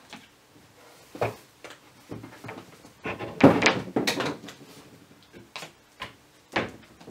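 Knocks and clunks of a demonstration baby doll being fetched and picked up: one knock about a second in, a louder cluster of knocking and clattering around three to four seconds in, and another sharp knock near the end.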